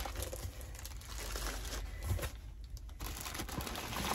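Plastic bags of cosmetics crinkling as they are lifted out of a shipping box and handled, with a short lull about two and a half seconds in.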